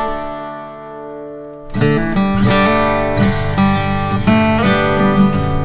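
Background music: a held chord fades for about a second and a half, then plucked notes pick up again.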